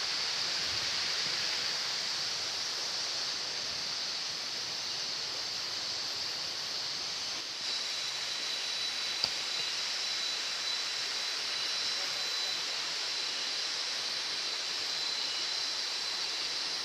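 Steady outdoor hiss of rushing water or a high insect chorus, with no pattern. About halfway through, a thin steady high tone joins in, and there is a single sharp click soon after.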